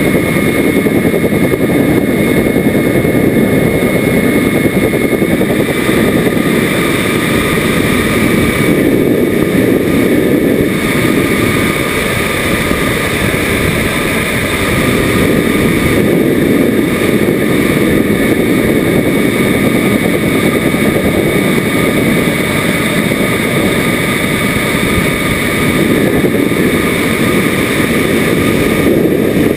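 Engine of a model Rafale jet in flight, recorded from a camera on its fuselage: a steady high-pitched whine over a loud rush of air, holding level through a roll to inverted flight.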